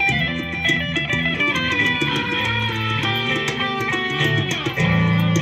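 Live rock band playing through PA speakers: electric guitar lines over a steady bass line.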